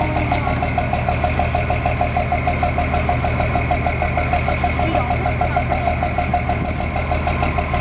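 Boat engine idling steadily, with a rapid, even pulsing beat of about five a second.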